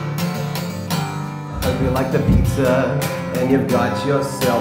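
Acoustic guitar being strummed, with a voice singing along from about one and a half seconds in.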